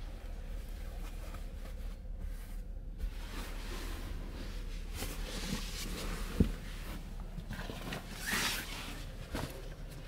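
Cloth rustling and handling noise as the bunk's bedding is moved, with a sharp knock about six seconds in and a louder scraping rustle near the end. A steady low hum of the ferry runs underneath.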